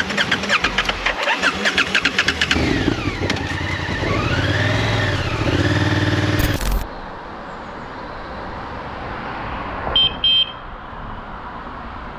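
Motorcycle engine pulsing fast and evenly, then revving up and down as the bike works through deep mud. It cuts off abruptly about seven seconds in, leaving a quieter steady background with two short high beeps near the ten-second mark.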